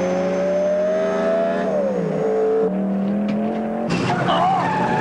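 Engines of a pickup truck and a sports car racing flat out. One engine note rises steadily as it accelerates, drops sharply at a gear change about two seconds in, then holds. About four seconds in, a harsher noise with a wavering tire squeal suddenly cuts in.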